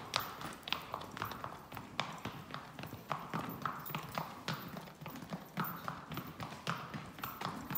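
Hoofbeats of a gaited racking horse: a quick, continuous run of hoof strikes on the ground, several a second and unevenly spaced.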